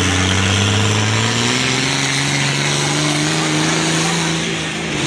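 Pulling tractor's diesel engine running flat out under full load as it drags a weight-transfer sled, its pitch climbing steadily from about a second in.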